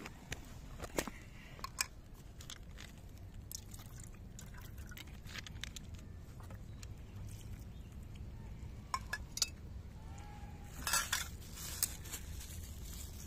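Two cats crunching dry kibble from a bowl: irregular small crisp crunches and clicks, with a denser, louder bout of crunching about eleven seconds in, over a steady low rumble.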